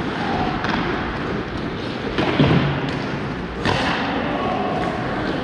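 Ice hockey rink during play: scattered thuds and knocks of pucks and sticks against the boards over a steady background noise, the loudest knock about two and a half seconds in.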